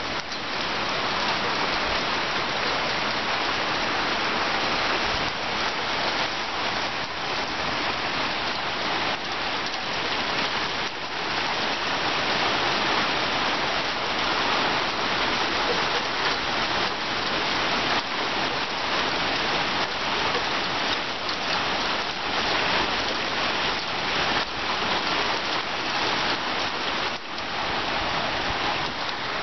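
Steady rain shower falling on roofs and paving: a continuous even hiss laced with many close individual drop impacts.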